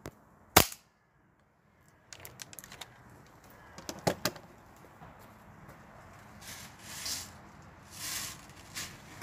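A single sharp shot from a Novritsch SSP5 gas airsoft pistol fired through a chronograph about half a second in. Then light clicks and knocks of handling, two sharper clicks around the four-second mark, and two short rustling noises near the end.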